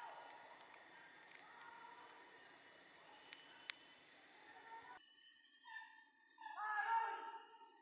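A steady, high-pitched drone of forest insects with a few faint ticks, which cuts off suddenly about five seconds in. A few short pitched calls, like voices, follow in the last seconds.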